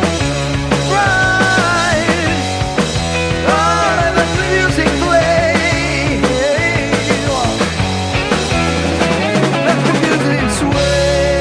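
Psychedelic rock band playing an instrumental passage: a lead line with bends and vibrato over bass and drums. About ten seconds in a rushing sweep passes, then a sustained chord rings.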